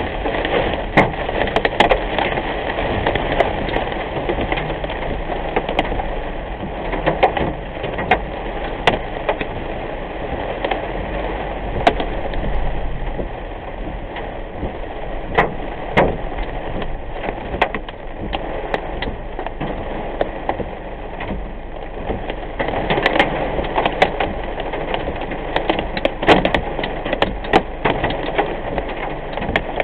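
Heavy rain pelting a moving car, heard from inside the cabin: a steady wash of rain and road noise with irregular sharp taps striking the windshield and roof.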